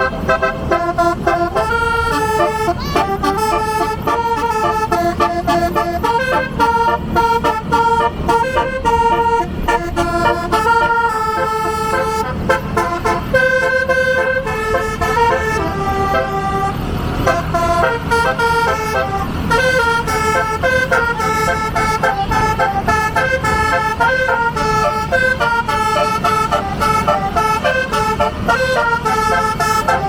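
A bus's 24-note basuri musical horn playing a melody, its tones stepping quickly from note to note without a break. A brief rush of noise comes about halfway through.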